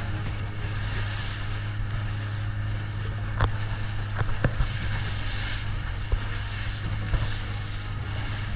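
Motorboat engine running at a steady drone, with a few sharp knocks about halfway through.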